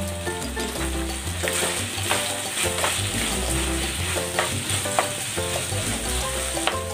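Chicken strips, onion and bell pepper sizzling in a nonstick wok as a spatula stirs them, with sharp scrapes and taps of the spatula against the pan several times.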